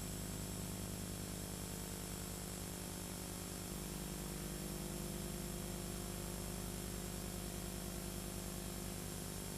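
Steady electrical hum and buzz with an even hiss, a line-noise drone made of many evenly spaced tones that holds unchanged.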